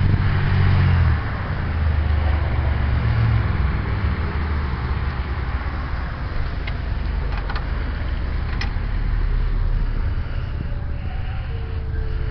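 A motor vehicle's engine running steadily with a low hum, loudest in the first second, with a few light clicks around the middle.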